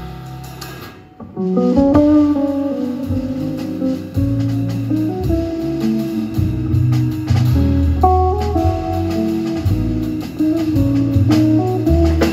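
Live jazz trio of guitar, double bass and drums. The music thins to a brief near-quiet gap about a second in, then the guitar comes in with a melodic line over walking low double-bass notes and light drums.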